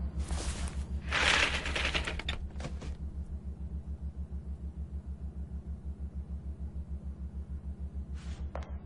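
Sound effect of a mechanical contraption: a steady, fast low pulsing throb, several beats a second, with a loud hissing rush in the first three seconds and a few sharp clicks near the end.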